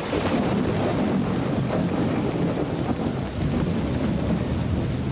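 Rolling thunder over steady rain: a sudden crack right at the start, then a long low rumble that carries on under the hiss of the rain.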